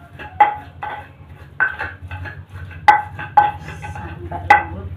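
A metal mixing bowl clinking and ringing as peyek batter of flour and peanuts is worked by hand in it: irregular knocks against the bowl, about five sharp ones, each leaving a short metallic ring.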